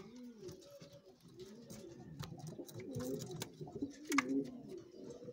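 Domestic pigeons cooing in a nest box: a steady run of low coos that rise and fall in pitch. A few sharp clicks cut through, the loudest about four seconds in.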